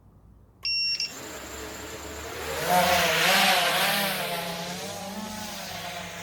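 A short electronic beep, then an FPV quadcopter's motors and 3D-printed ducted propellers whirring, swelling to their loudest about three seconds in with a pitch that wavers up and down, then easing to a steady whir.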